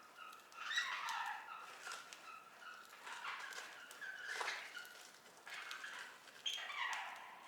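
Budgerigars chattering and warbling in several short bursts, with a few light clicks.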